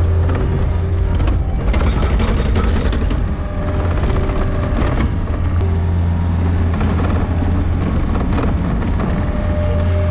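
Gehl RT65 tracked skid steer's diesel engine running steadily, with bursts of rougher noise between about one and a half and three seconds in, around five seconds in, and again later as it works pushing snow.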